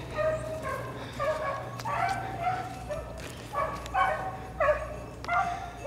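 Beagles baying on a rabbit's trail: short, high-pitched bays about two a second, with more than one hound's voice overlapping at times.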